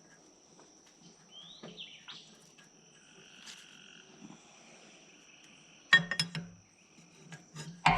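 Insects droning steadily in a high, even tone, with a few short rising calls over it. About six seconds in, a much louder passage of sharp knocks and pitched sound breaks in.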